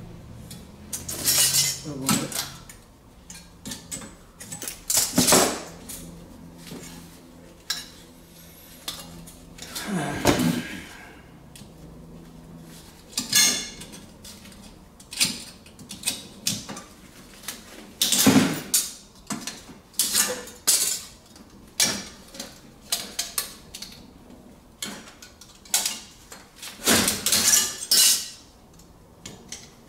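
Irregular metallic clinks and knocks, some a little drawn out, as copper pipe and fittings are handled and knocked together while a baseboard heater's pipe is being repaired.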